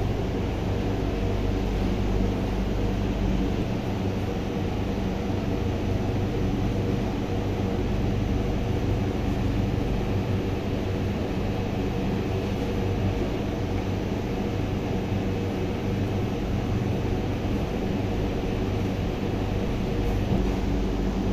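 Steady low mechanical hum with several held tones, unchanging throughout.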